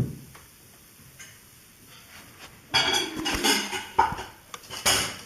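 A thump, then a few seconds of clattering and rattling of hard objects, in several bouts about a second apart.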